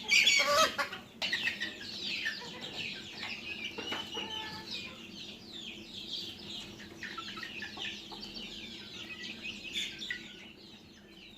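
A flock of desi chickens calling, with many short overlapping high calls and clucks, and a louder burst of calling in the first second. The sound fades toward the end.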